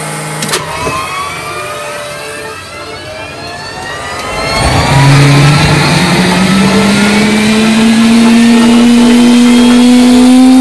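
Gas-turbine air start unit from an F-4 Phantom starting up: a click, then a whine that rises in pitch as it spools up. About five seconds in it gets much louder and runs on steadily, its tone still slowly rising.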